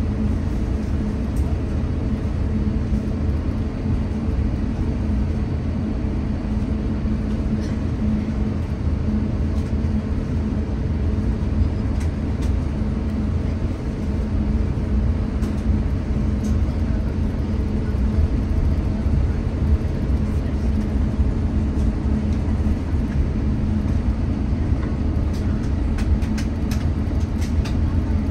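Cabin noise inside an Airbus A350-900 with its Rolls-Royce Trent XWB engines at taxi idle: a steady low rumble with a constant hum. A few faint ticks come through it, several of them near the end.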